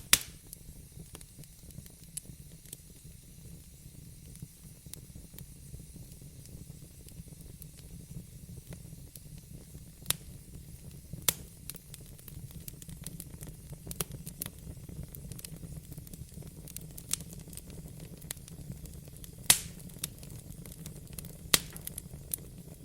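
Fireplace fire burning with a steady low rumble and soft hiss, broken by irregular sharp crackles and pops, the loudest one near the end.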